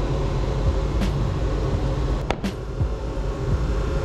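Steady low rumble of background noise, with sharp knocks of a wood chisel working a dovetail joint about a second in and twice more around two and a half seconds.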